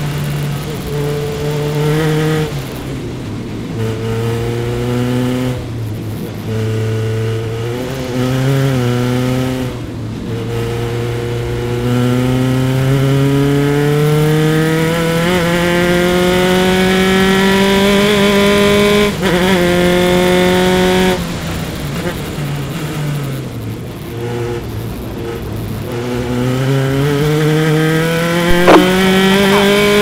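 Single-seater race car's engine heard on board at racing speed. Several short bursts of revving are broken by lifts off the throttle, then comes one long climb in pitch. About two-thirds of the way through the engine lifts and drops in pitch, then climbs again near the end.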